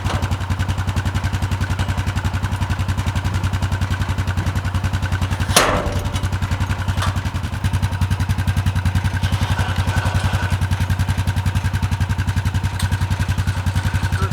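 Engine of a manual bandsaw sawmill running steadily with an even, fast pulsing, and one sharp knock about five and a half seconds in.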